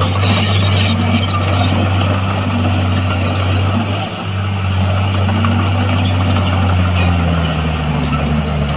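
Heavy diesel earthmoving machine running steadily, its engine pitch wavering, with a brief dip in level about four seconds in and the engine speed falling near the end.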